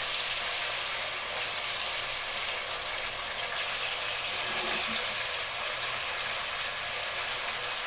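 Chicken breast pieces sizzling steadily as they brown in hot vegetable oil in a pot.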